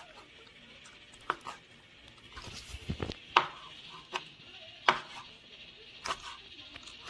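Long kitchen knife slicing boiled octopus tentacles on a cutting board: about six sharp knocks of the blade striking the board at uneven intervals, the loudest in the middle.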